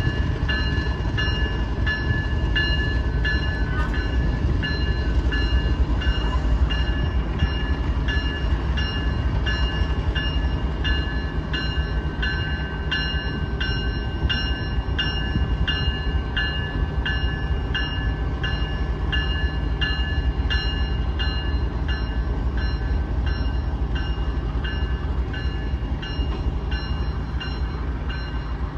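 Freight train rolling past: a steady low rumble of the wagons, with a short metallic ringing tone recurring about once a second.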